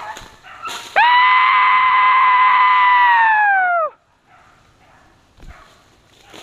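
A hunting horn blown in one long, loud, steady note of about three seconds, dropping in pitch as it ends, the kind of horn call that drivers use to work the dogs on a deer dog drive.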